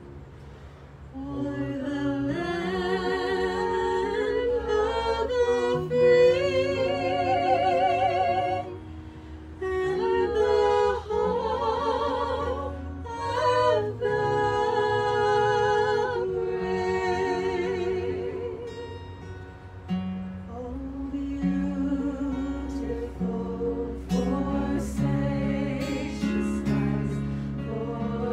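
Several voices singing held notes with vibrato, accompanied by acoustic guitars and a ukulele.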